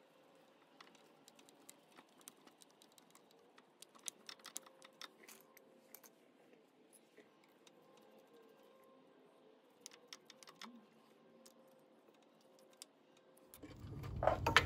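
Faint, scattered small clicks and taps of a screwdriver working the screws on a Honda CT70's stator plate, coming in loose irregular clusters. About a second before the end, a louder low rumbling handling noise starts, with a sharp knock.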